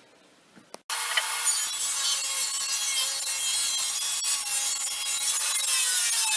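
Table saw ripping a length of 2x6 lumber along the fence: a loud, steady saw whine and cutting noise that starts abruptly about a second in. Near the end the pitch falls as the blade winds down.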